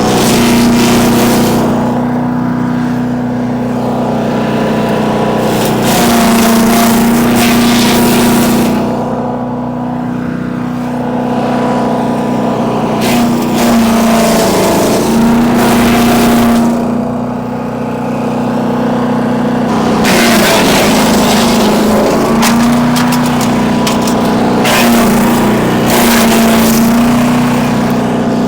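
A Bilt Hard 224cc gas-engine wood chipper running steadily at speed while branches are fed through it. Several spells of loud crackling chipping, each a few seconds long, come and go, and the engine pitch sags a little under the load of some of them.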